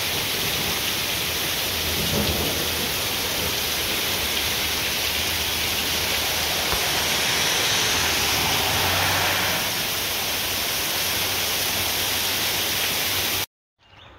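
Steady heavy rain with low rumbles of thunder swelling a couple of times; it stops abruptly near the end.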